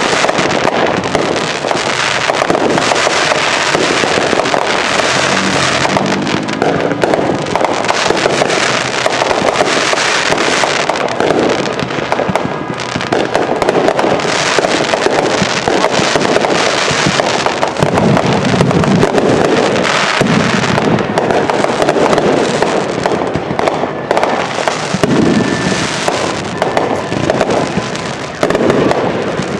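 Fireworks going off in a dense, continuous barrage: rapid crackling and popping mixed with many bangs, with no pause.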